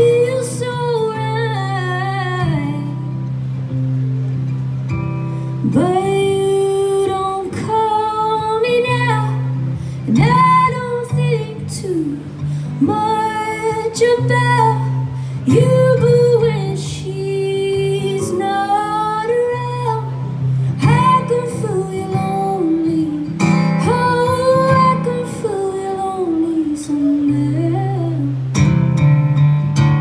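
A woman singing in long, gliding held notes over a strummed acoustic guitar in a live solo performance. Near the end the voice stops and the guitar plays on alone.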